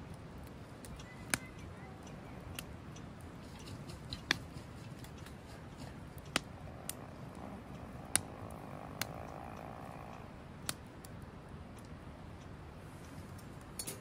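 Wood fire crackling in a small fire pit: sharp single pops every second or two, the loudest about four and eight seconds in, over a low steady hiss.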